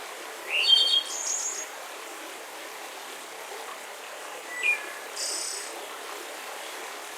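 Forest songbirds calling over a steady hiss. There is a quick rising call with a few clipped notes about half a second in, a short call a little past the middle, and a high buzzy call just after it.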